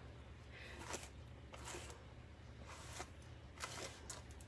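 Faint, irregular rustling of fingers working through curled hair, a few soft brushing strokes, over a low steady hum.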